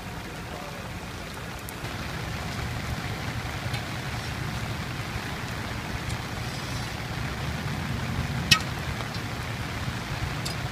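Steady hiss of storm rain and running floodwater over a low rumble, getting a little louder about two seconds in, with one sharp click about eight and a half seconds in.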